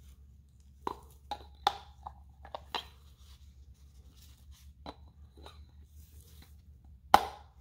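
A string of short sharp clicks and light knocks as a new oil filter element is fitted into an aluminium oil filter housing, with a louder knock near the end. A low steady hum runs underneath.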